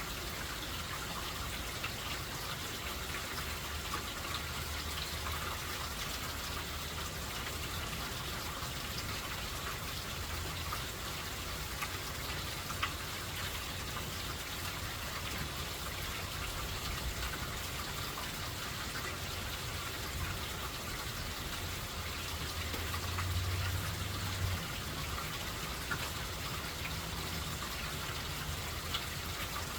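Steady rain falling, with scattered louder drops ticking. A low rumble swells briefly about 23 seconds in.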